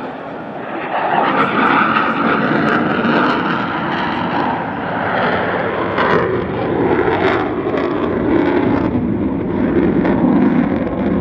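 Loud jet noise from the F-35A's single Pratt & Whitney F135 afterburning turbofan as the fighter pulls up and climbs overhead. The sound drops lower in pitch from about halfway through, with a few sharp crackles around six and seven seconds in.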